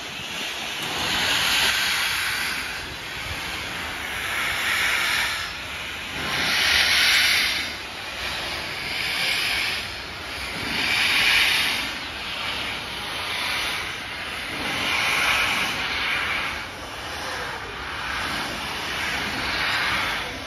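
BR Standard Class 4 4-6-0 steam locomotive No. 75069 moving off slowly with its cylinder drain cocks open: loud hissing blasts of steam that swell and fade about every two seconds.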